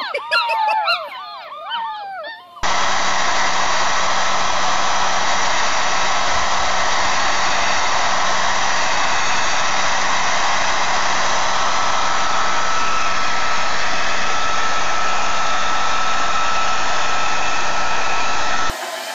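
A litter of puppies howling together, many overlapping rising and falling howls. After about two and a half seconds this is cut off by a hair dryer running steadily with a thin whistle, which stops near the end.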